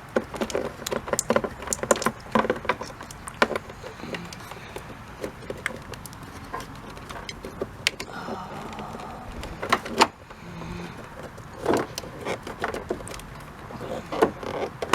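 Irregular clicks, taps and rattles of hands working a plastic turn-signal bulb socket into the back of a car's headlight assembly, with the loudest knocks about ten and twelve seconds in.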